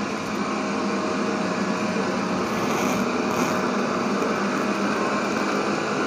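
360 S7 robot vacuum cleaner running in standard suction mode: a steady whirring hiss from its suction fan, with a low hum under it.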